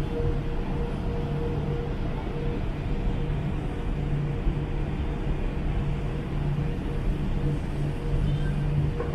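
Steady low mechanical drone with a constant hum running through it. A brief higher sound comes at the very end.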